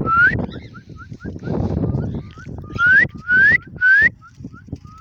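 Cockatiel calling: four loud rising whistles, one near the start and three close together about three to four seconds in, over a steady run of soft short rising chirps about three a second. Low rustling noise comes and goes in the first two seconds.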